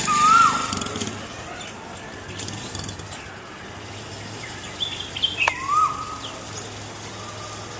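Koel calling: two whistled notes, each rising then dropping, one at the start and one about six seconds in, with short higher chirps just before the second.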